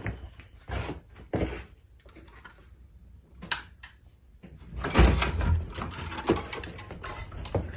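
A series of knocks and thumps, about six in all, the loudest a longer heavy thud with rustling about five seconds in.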